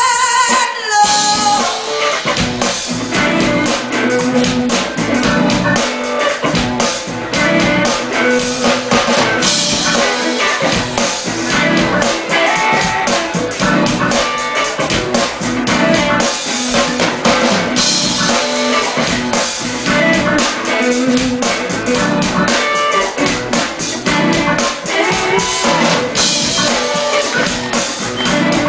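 Live soul band playing: electric guitars over a drum kit with a steady beat.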